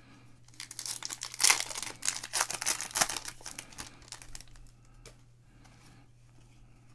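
Wrapper of a Panini Certified football card pack crinkling and tearing as it is ripped open, a run of sharp crackles loudest about a second and a half in and again about three seconds in. After that come only soft scattered ticks as the cards are handled.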